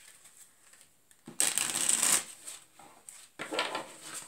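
A deck of cards being shuffled by hand: a loud rustling shuffle about a second and a half in, then a shorter one near the end.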